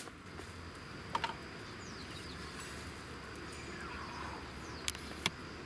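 Insects trilling steadily in one high, even tone, with three sharp taps, one about a second in and two close together near the end.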